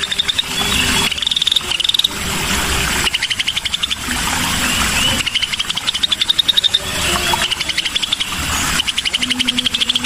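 Cucak sisik (scaly-breasted bulbul) song played as a lure recording: about five rapid, buzzy trills, each about a second long and rising in pitch, over a steady background hiss.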